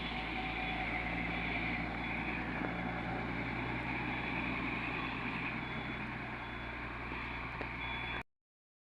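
Heavy diesel earthmoving machinery running steadily, a constant engine drone, which cuts off abruptly about eight seconds in.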